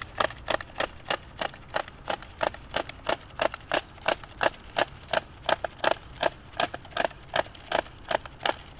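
Steady ratchet clicking, about three clicks a second, from an Echo string trimmer head as it is turned to wind trimmer line onto its spool.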